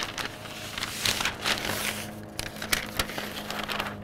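Butcher paper rustling and crinkling as it is folded and wrapped around a smoked brisket.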